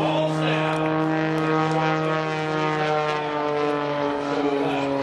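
Propeller aircraft engine droning steadily at a constant pitch, which dips slightly near the end.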